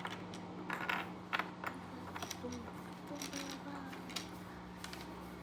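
A few light clicks and taps of plastic Lego pieces being handled, mostly in the first two seconds, over a steady low hum.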